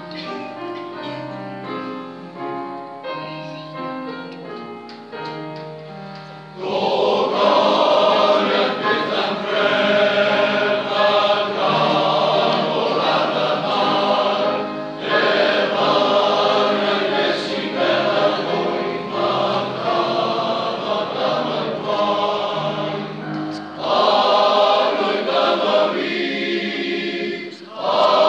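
Male voice choir singing. It is quieter for the first few seconds, then the full choir comes in loudly about seven seconds in, with short breaks between phrases.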